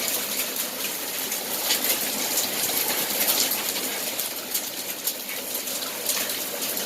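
Small hailstones falling in a steady dense patter, with many sharp ticks of stones striking hard surfaces over a continuous hiss.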